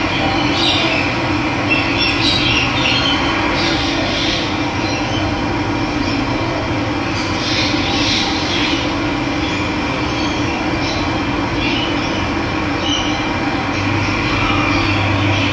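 Steady rush of running water, with birds chirping now and then above it.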